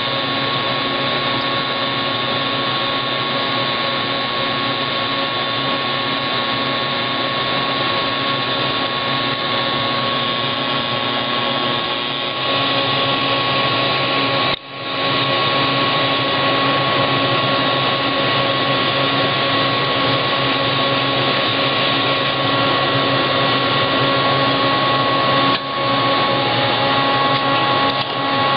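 Steady machine whir and hiss with several fixed tones, like a fan-cooled motor running, dropping out for an instant about fourteen seconds in and again briefly near the end.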